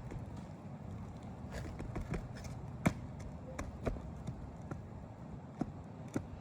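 Irregular light clicks and knocks from work on an asphalt shingle roof, over a steady low rumble, with the sharpest knock about halfway through.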